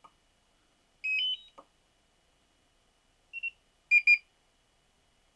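Electronic beeps from DJI FPV gear as the FPV remote controller is switched on and links up. A quick rising run of three or four short notes comes about a second in, followed by a soft click. Then a short beep, and two louder beeps near four seconds.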